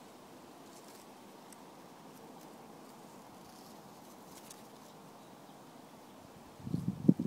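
Faint steady outdoor background hiss with a few faint high ticks. Near the end, loud irregular low rumbling knocks start as the phone's microphone is bumped and rubbed while it pushes in among the rose leaves.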